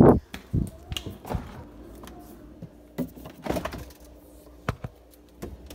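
Handling and household knocks: a heavy thump at the start, then scattered sharp knocks and clicks, with a faint steady hum underneath.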